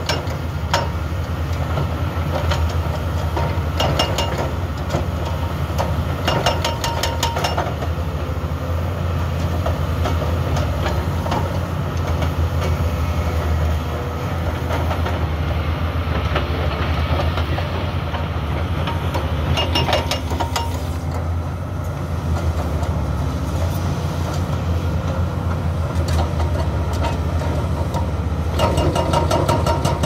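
SANY SY335C excavators' diesel engines running steadily, with a few short bursts of rapid hammering from a hydraulic breaker (jackhammer) pounding asphalt blocks.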